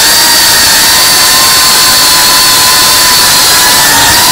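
FPV quadcopter's brushless motors and propellers heard through its onboard camera: a loud, high whine held at one steady pitch over the hiss of the props.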